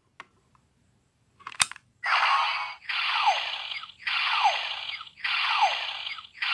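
Legend Hero Changer DX toy: a couple of faint plastic clicks, then a sharp snap about one and a half seconds in as a hero piece is set into it. Its speaker then plays a repeating electronic effect, a hissing burst with a falling tone, about once a second.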